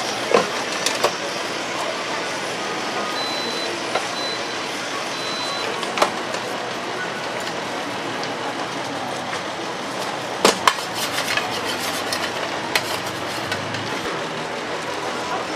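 Steady background noise of a street-food stall, with scattered sharp clicks and knocks, the loudest about ten and a half seconds in. A faint high beep sounds several times from about three seconds in.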